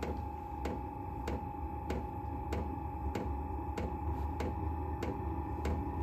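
Silvel 8 kW diesel heater's fuel dosing pump ticking evenly, about one and a half clicks a second, as it feeds fuel during startup. Under it runs a steady hum with a low rumble.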